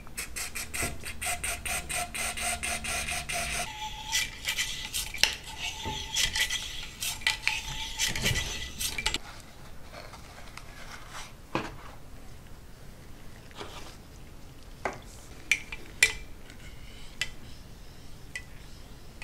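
Brass bore brush on a cleaning rod scrubbing back and forth inside a 9mm pistol barrel: metallic scraping in rapid, evenly paced strokes for the first few seconds, then a rougher rasping. About nine seconds in, the scrubbing stops, and only scattered light clicks and taps of handling remain.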